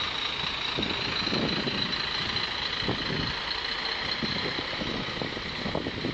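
Heavy prime mover truck's diesel engine running as it tows a lowboy trailer slowly past, under a steady high-pitched hiss.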